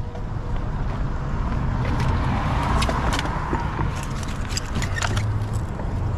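A vehicle passing over a steady low rumble, its noise swelling and fading about halfway through. Scattered light clicks and clinks come as the magnet rope and magnet are handled on the concrete.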